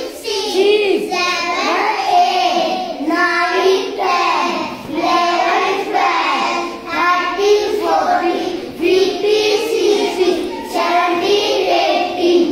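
A class of children chanting numbers together in a sing-song rhythm, reciting the times table being written on the board.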